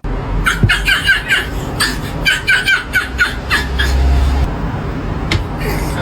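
A person laughing in a quick run of short bursts, about three to four a second, over a low steady hum.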